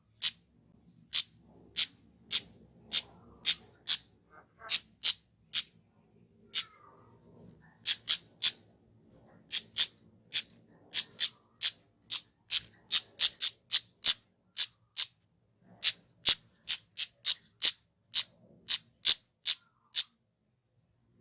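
Kemade (flowerpecker) calling: a long, uneven series of very short, sharp, high chip notes, often about two a second and sometimes in quick runs, with brief pauses between runs.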